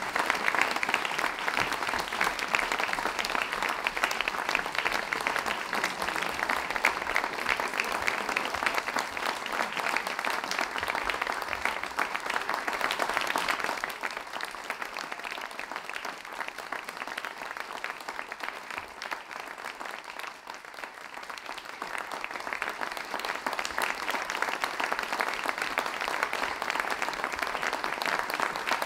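Audience applauding steadily. It eases off a little past the middle and builds again a few seconds later.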